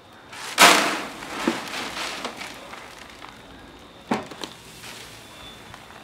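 Dark granular potting substrate poured into a plastic crate. A loud rush of grains hits the plastic about half a second in, then settles into a steady trickling hiss, with a sharp knock about four seconds in.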